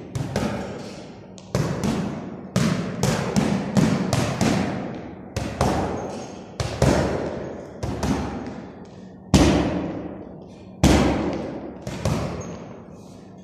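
Gloved punches landing on a heavy punching bag: quick combinations of two to four thuds with short pauses between them, each hit echoing off the bare concrete walls. Two single hard hits, the loudest, come about two-thirds of the way through.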